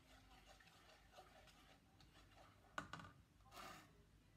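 Faint crackling of chicken pieces frying in oil in a nonstick pot, with a sharp knock of the stirring spoon against the pot about three seconds in and a short scrape just after.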